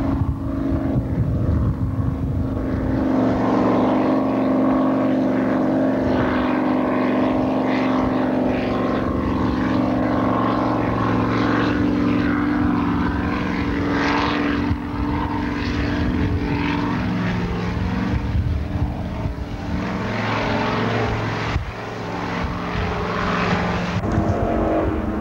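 Racing powerboat engines running flat out as the boat planes past, a steady droning engine note over the rush of the hull and spray.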